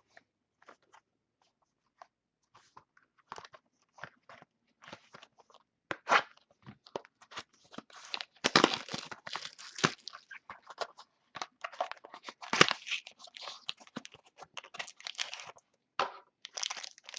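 A trading-card mini box being opened by hand: scattered crackles at first, then several seconds of dense crinkling and tearing of the wrapper, stopping shortly before the end.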